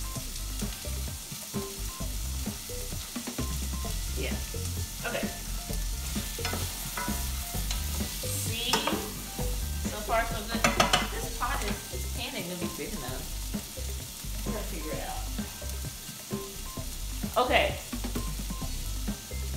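Mixed vegetables sizzling in a frying pan as they are stirred with a spatula. The strokes scrape and clack against the pan, busiest a little before halfway through and again once near the end.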